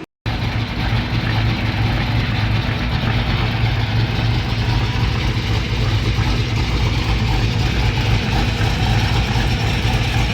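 Car engine running loudly at a steady speed. It begins after a brief gap and cuts off suddenly.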